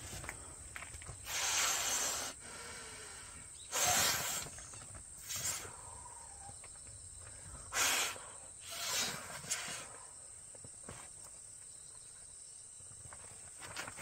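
A person blowing by mouth into the valve of a self-inflating camping mat: about five breathy rushes of air in the first nine seconds, then it goes quiet.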